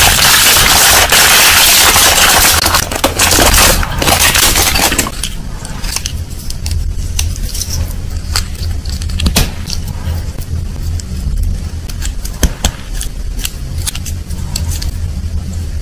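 Clear plastic wrapper crinkling loudly as it is pulled open, for about the first five seconds. Then quieter scattered clicks and rustles as a small hard plastic toy figure is handled, over a steady low hum.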